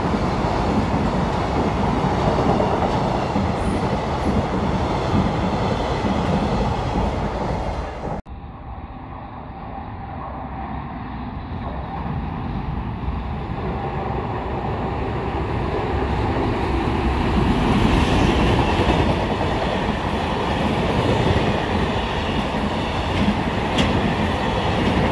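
Freight train running past, its wheels clattering over the rail joints. About eight seconds in the sound cuts off abruptly, then the train noise builds up again and grows louder.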